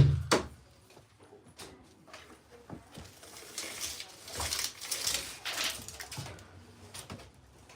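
A hammer strikes a nail once just after the start, the last of a quick run of blows. A few light knocks and a stretch of rustling and scraping follow from handling material.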